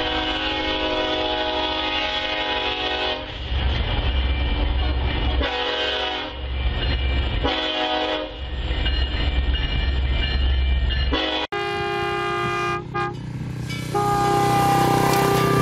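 A diesel freight locomotive's air horn sounds a long blast, then several shorter blasts, with the low rumble of the passing locomotives between them. Near the end it cuts abruptly to a different train's horn, sounding twice.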